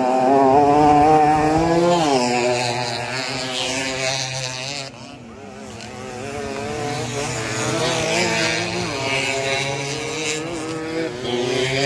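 Small two-stroke Suzuki AX100 motorcycle engines running hard at race pace, the pitch rising and falling with throttle and gear changes. Loudest in the first two seconds, it fades about five seconds in, then builds again as a bike comes up the track.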